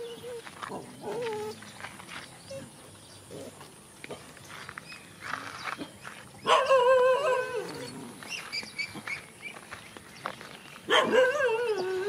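A dog giving two loud, drawn-out, wavering cries about a second long each, one past the middle and one near the end, both falling in pitch as they fade. Fainter short cries come near the start.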